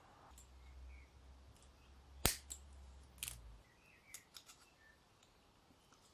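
Faint sharp clicks and taps of small metal carburettor parts and hand tools being handled during reassembly of an Amal Concentric carburettor, with one louder, crisp click about two seconds in and a few lighter ones over the next two seconds.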